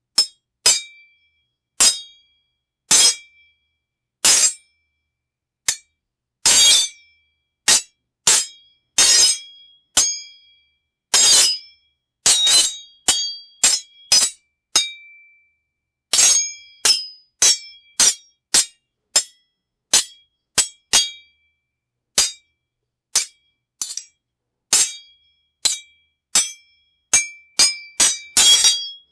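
Sword blades clashing: sharp metal strikes, each ringing briefly with a bright metallic tone. Single hits a second or more apart at first, then quicker runs of clashes from about the middle and again near the end.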